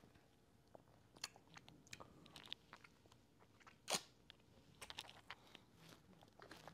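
Faint mouth sounds of a person tasting a thick fruit smoothie: scattered small lip smacks and clicks, with one louder sip about four seconds in.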